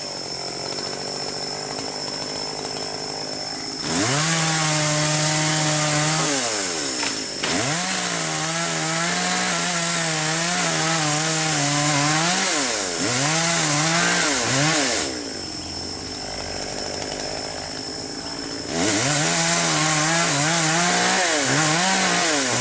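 Chainsaw idling, then revving up and cutting across a section of eucalyptus trunk in three spells: about 4 s in, again from about 7 s, and again near the end. Between spells the engine drops back to a quieter idle, and its pitch wavers while it cuts.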